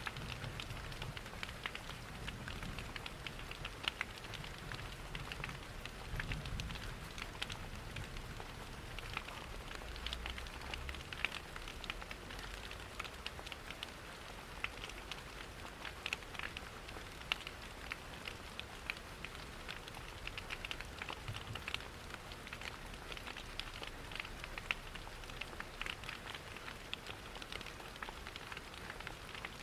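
Steady rain pattering, mixed with the irregular small crackles and pops of a wood fire in a fireplace. A low rumble sits underneath, stronger in the first half.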